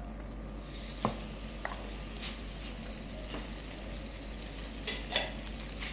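Minced pork sizzling steadily in a little hot oil in a wok, the hiss setting in just after the meat lands, with a few light knocks of the wooden spatula against the pan, the loudest near the end.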